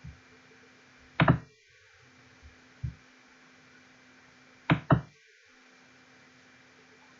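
Sharp knocks in two close pairs, about a second in and again near five seconds, with a softer single thump between them, over a faint steady hum.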